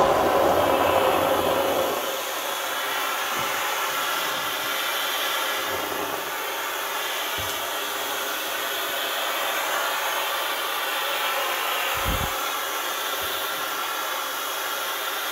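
Kärcher steam cleaner jetting steam in a steady hiss onto a greasy stain on a kitchen front. The hiss starts abruptly, is a little louder for the first couple of seconds, then runs evenly.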